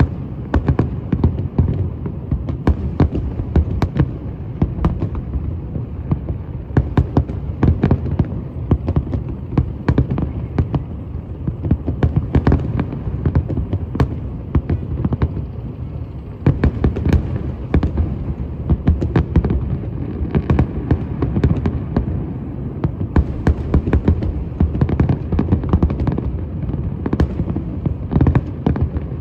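Fireworks going off in a dense, unbroken run: many sharp bangs and cracks one after another over a steady low rumble of further bursts.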